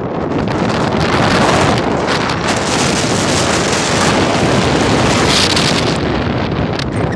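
Wind buffeting the microphone: a loud, rushing noise that swells about a second in and eases a little near the end.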